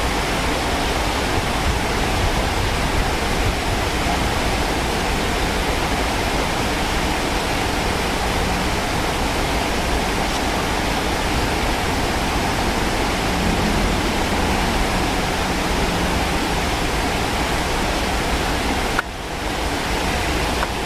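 Stream water rushing and cascading over boulders in white-water rapids, a steady full rush with no letup; it dips briefly about nineteen seconds in.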